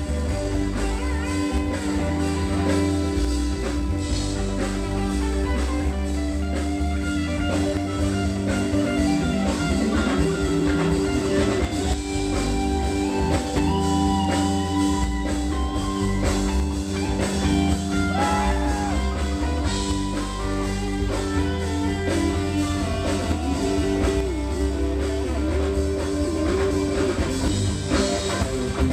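Rock band playing continuously: guitar lines over bass and drum kit, in a bluesy rock style.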